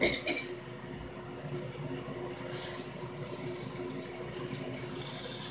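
Air Wick aerosol air freshener can spraying in short hissing bursts, growing stronger over the last second or so.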